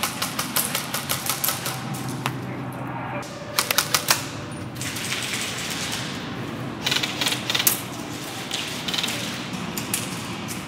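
Airsoft guns firing in several rapid bursts, a fast run of sharp clicks each time, with pauses between the bursts.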